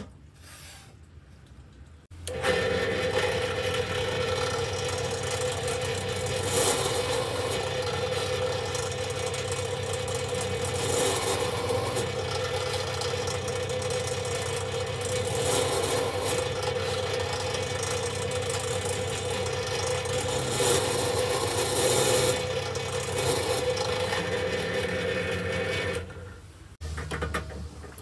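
Electric drill running at a steady speed while boring into wood, starting about two seconds in and cutting off near the end.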